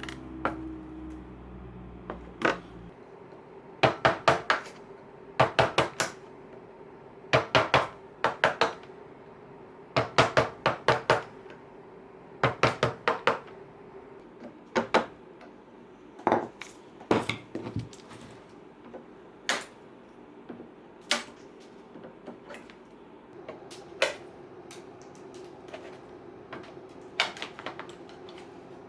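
Sharp taps and knocks from upholstery hand tools working on a wooden chair, in quick runs of three or four strikes, then single strikes further apart.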